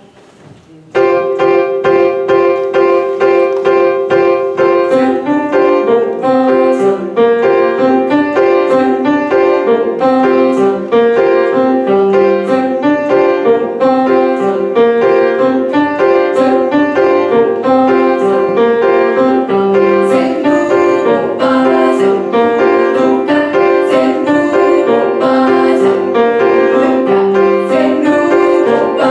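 Grand piano playing a steady, rhythmic repeating figure, starting abruptly about a second in.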